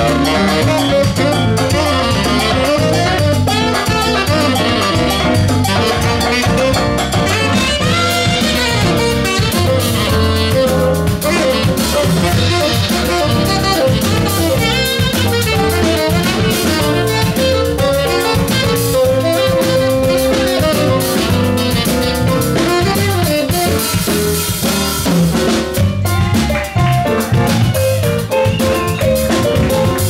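Live jazz band playing an instrumental passage, with drum kit and horns.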